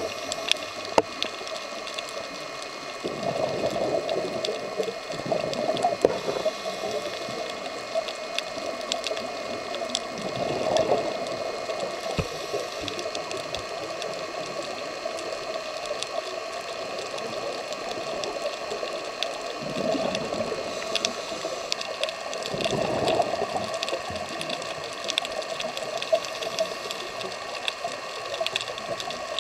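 Underwater sound heard through a diver's camera housing: a scuba diver's exhaled bubbles rushing in swells every several seconds, over a steady hiss with scattered sharp clicks.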